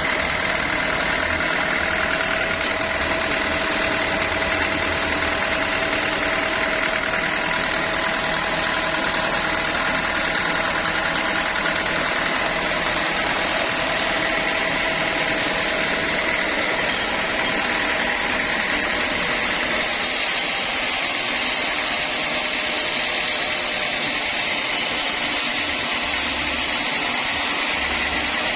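Sawmill saw machinery running steadily, a constant mechanical drone with a steady high whine; a higher hiss joins about two-thirds of the way through.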